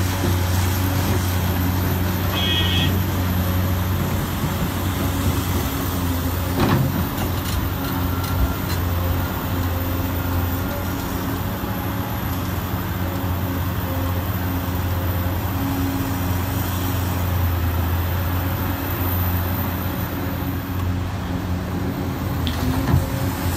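Caterpillar 385C large hydraulic excavator's diesel engine running steadily under load while it digs and swings to load a dump truck. A sharp knock comes about seven seconds in and another near the end.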